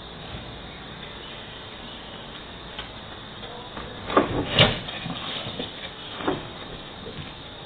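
Steady hiss of a security camera's microphone, with a burst of sharp knocks and clatter about four seconds in and one more knock near six seconds.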